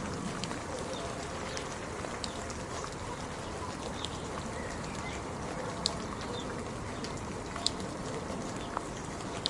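Steady rain hiss with a few sharp drips tapping over it, the loudest about six and about eight seconds in.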